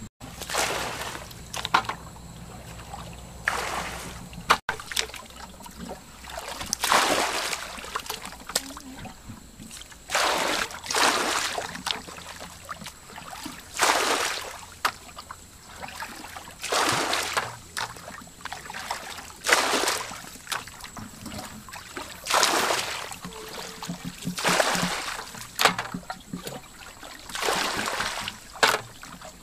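Hands splashing and sloshing through shallow muddy water while groping for fish, in short splashes every one to three seconds.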